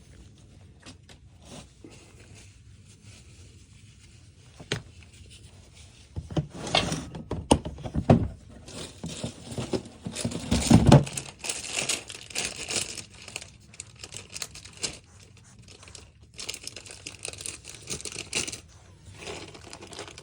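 Plastic snack packaging being crinkled and torn open by hand, irregular crackling rustles that start about six seconds in after a few faint clicks.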